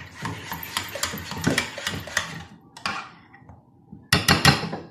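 Spoon stirring a thick chocolate cream in a ceramic bowl, scraping and clicking against the sides, then a quick run of louder knocks against the bowl about four seconds in.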